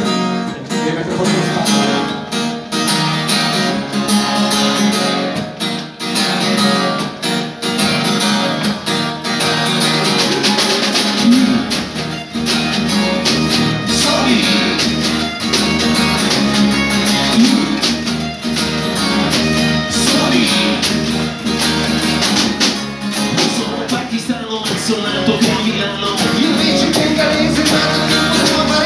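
Live acoustic punk band playing: strummed acoustic guitars, an acoustic bass guitar and a snare drum with cymbal, with a male lead voice singing. The bass end fills out about a third of the way through.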